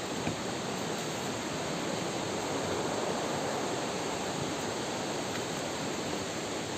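Steady rushing of a waterfall: an even wash of falling water that does not change.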